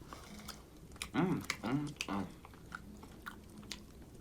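Close-up chewing and biting of food with small sharp mouth clicks. About a second in come three short voiced murmurs of enjoyment.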